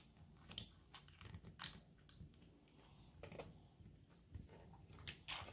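Small plastic Lego pieces being handled: a few faint, irregular clicks and taps.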